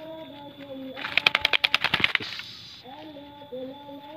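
Wings of a wounded spotted dove flapping hard against the ground and the hand holding it: a loud, rapid run of beats, about ten a second, lasting about a second. A low, wavering hum-like tone runs beneath it.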